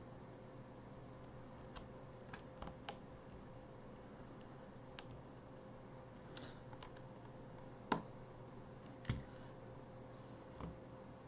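Scattered small clicks and taps of a precision screwdriver and tweezers on the tiny internal screws and metal brackets of an iPhone 6s Plus as the screws are fitted, with two louder taps about two-thirds of the way through, over a faint steady hum.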